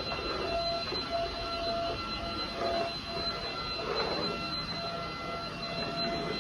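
Gaabor vacuum cleaner running, its motor giving a steady whine of several fixed tones over a rushing hiss.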